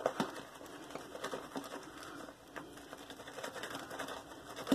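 Boar-bristle shaving brush whipping a thick lather in a lathering bowl, making quick, irregular wet clicks and crackles, with one sharper click near the end.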